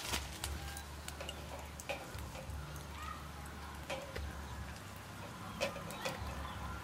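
Aluminium drink cans being set down on and shifted about a wire grill: a few separate light metallic clicks and taps, spread out irregularly.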